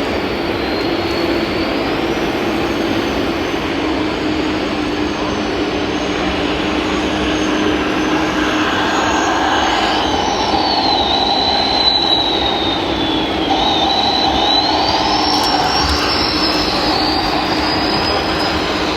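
Small electric motors and hydraulic pumps of radio-controlled scale construction machines whining, their pitch rising and falling as the models are worked, over a steady hum and running noise.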